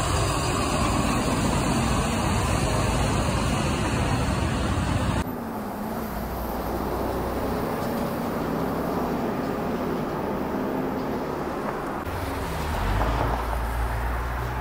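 Heavy trucks driving past on a wet street, with diesel engine noise and tyre hiss. The sound changes abruptly about five seconds in. After that a truck engine's pitch rises and falls as it pulls through, and traffic swells again near the end.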